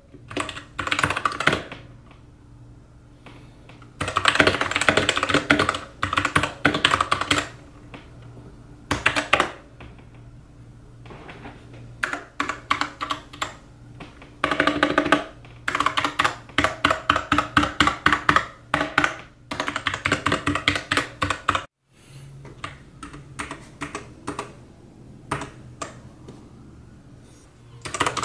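Typing on an RK Royal Kludge RK68 wireless mechanical keyboard: runs of fast, clattering keystrokes broken by short pauses. Over the last several seconds the key presses come sparser and quieter.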